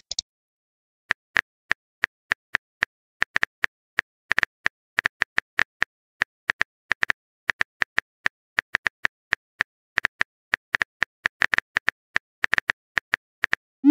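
Phone keyboard typing clicks: irregular short taps, a few a second, as a chat message is typed out.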